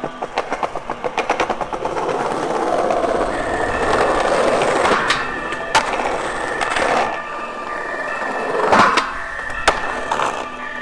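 Skateboard wheels rolling over paving-stone joints, clicking rapidly, then running smoother on concrete. Later come a few sharp clacks of the board hitting the ground and a short scrape, most likely a grind or slide on a curb edge.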